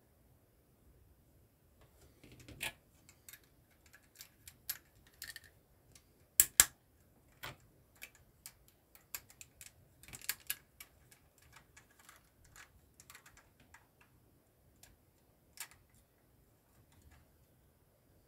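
Plastic LEGO bricks clicking and snapping together as pieces are pressed on by hand, in irregular clicks with a loud double snap about six and a half seconds in.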